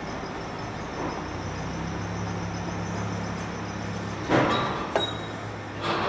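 Handling noise from the speedometer gear puck being worked and keyed into its slots at the scooter's front wheel hub: a short metallic scrape about four seconds in, a sharp click, and another brief clatter near the end. A steady low hum runs underneath.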